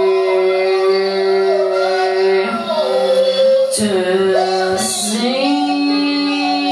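Live experimental music: a voice sung into a microphone over a steady, held drone of several tones. Between about two and five seconds in, the pitches slide down and back up, with two short hissy bursts.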